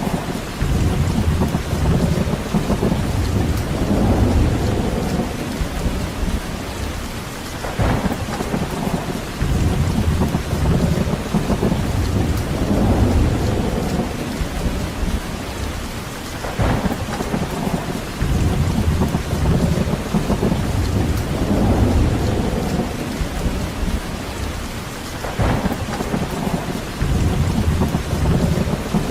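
Steady rain falling, with deep rumbling swells that rise and fade every few seconds.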